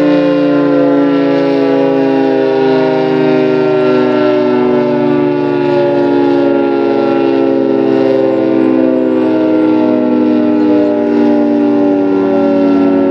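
Federal Signal 2T22 dual-tone civil defense siren sounding a loud, steady chord, its pitch sinking slowly.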